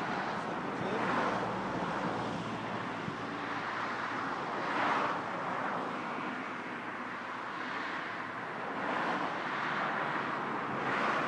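Outdoor rushing noise that swells and fades every second or two, like wind gusts, with no clear engine or voice in it.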